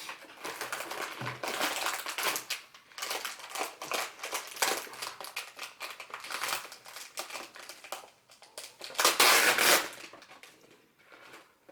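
Plastic snack wrapper being torn open and crinkled by hand, an irregular crackling with the loudest burst about nine seconds in.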